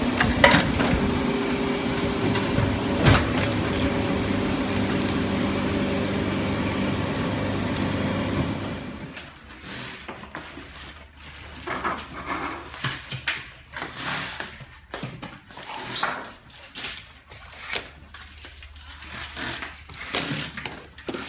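A steady machine hum with a few held tones for about nine seconds, then it stops and is followed by irregular small clicks and knocks.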